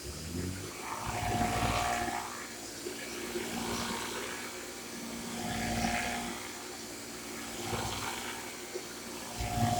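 Shark corded Anti Hair Wrap vacuum cleaner switched on and running, its motor starting right at the beginning with a steady hum and whine. The sound swells and eases every couple of seconds, as with a vacuum being pushed back and forth.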